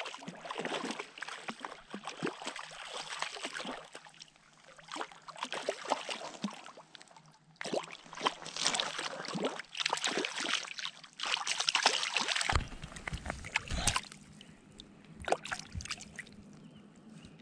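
Water splashing and sloshing in repeated bursts of a few seconds each, with a deep rumble on the microphone for about a second and a half about two-thirds of the way through.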